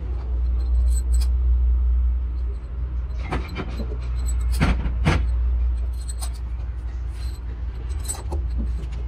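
Several sharp metallic clinks and knocks, as of engine parts or tools being handled, over a steady low rumble.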